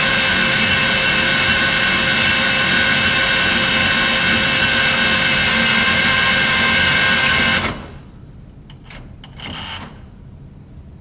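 Battery-powered remote racking motor drive unit running steadily with a whine as it turns the racking mechanism of a GE Magne-Blast breaker in toward the connected position. It cuts off suddenly about three-quarters of the way through when the breaker reaches connect. A couple of faint short sounds and a brief half-second run of the motor follow as the unit backs off.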